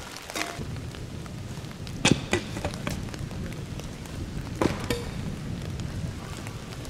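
Thrown tomahawks striking a wooden target twice, about two and a half seconds apart, each a sharp thunk with a short ring.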